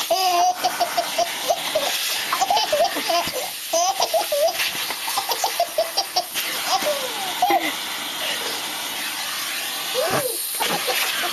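A baby laughing in quick runs of short giggles and belly laughs, with a brief pause near the end, over the steady hiss of a running vacuum cleaner.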